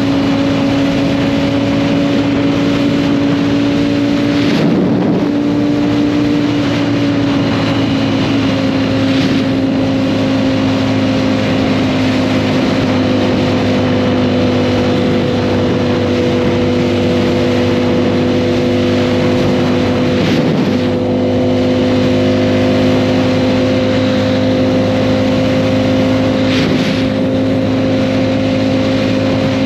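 Motorcycle engine running at steady cruising revs, its pitch dipping slightly about seven seconds in and then holding, over steady rushing road and wind noise.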